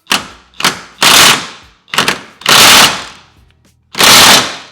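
Impact wrench fired in short bursts: two quick blips, then three longer bursts of about half a second each.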